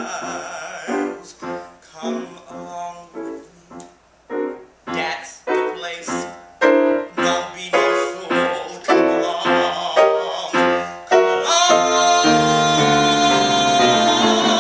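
Piano playing a rhythmic accompaniment of short, separate chords; near the end a man's singing voice comes in, holding a long note with vibrato over sustained piano chords.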